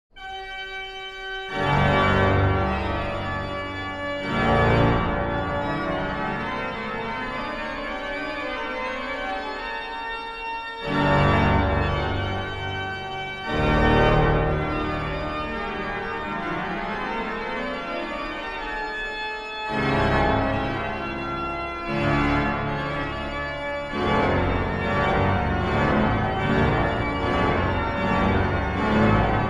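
Pipe organ playing loud, full sustained chords over deep pedal bass in a reverberant church. The music swells in repeated heavy entries, and near the end it moves into quicker, busier figures.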